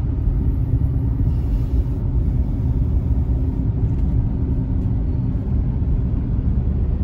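Steady low road-and-engine rumble heard from inside a moving car's cabin, with a faint steady hum for a few seconds in the middle.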